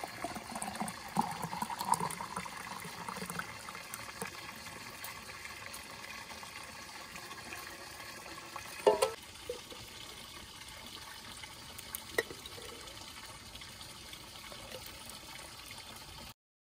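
Raspberry juice poured from a pot into a glass jar for the first few seconds, over a steady sound of running spring water. A sharp knock about nine seconds in and a click near twelve seconds; the sound cuts out just before the end.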